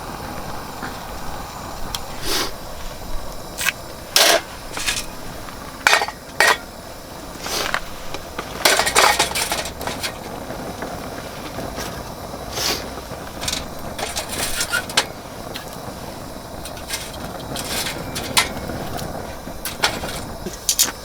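Steady wind rushing over the microphone, with irregular sharp clicks and knocks throughout and a quick run of them about nine seconds in.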